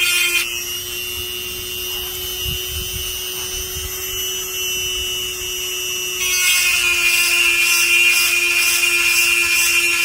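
Seesii 180W electric chainsaw sharpener running steadily on its slowest speed, its 5/32-inch grinding stone grinding against chain teeth. The grinding eases off about half a second in, leaving the motor's whine, and comes back louder about six seconds in.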